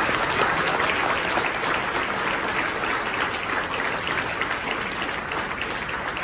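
Congregation applauding, a dense patter of many hands, loudest at the start and slowly dying down.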